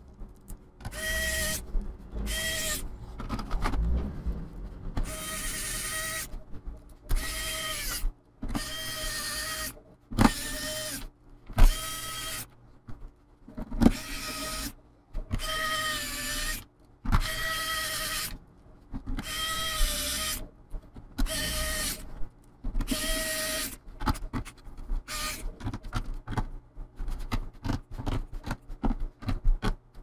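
Pen-style electric precision screwdriver tightening the screws of a laptop's bottom cover: about a dozen short runs of motor whine, each a second or so long, with pauses between them. Near the end, a quick patter of small clicks and taps.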